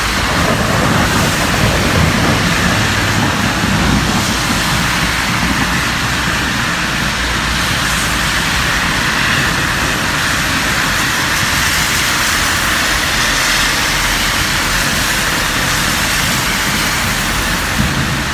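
Heavy rain pouring steadily, with gusts of wind rumbling on the microphone.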